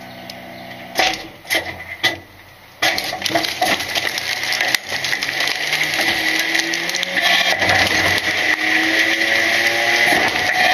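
A few knocks, then about three seconds in the Load Master Legacy rear loader's hydraulic packer starts: a steady high hydraulic whine over the truck's engine, which revs up with a rising pitch as the packer cycles.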